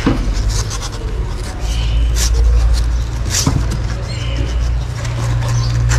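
Nursing kittens giving a couple of faint, brief high squeaks, over a steady low rumble and scattered light clicks.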